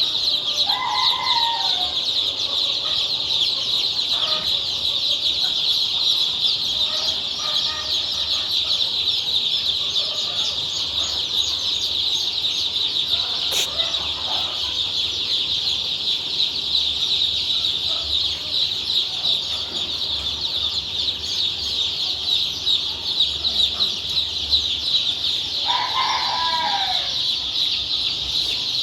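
A large flock of young Sonali chicks peeping all together in a dense, unbroken high-pitched chorus. A few louder, lower calls stand out above it, once about a second in and again near the end.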